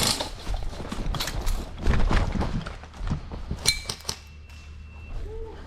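Airsoft rifle shots fired in irregular quick succession, sharp clacks and snaps. About three and a half seconds in comes a sharper hit followed by a thin ringing tone lasting over a second, after which the shooting dies down.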